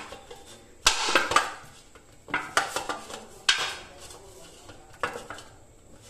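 Stainless steel plate clattering and scraping on a stone counter as a ball of wheat dough is kneaded in it, in four short bursts.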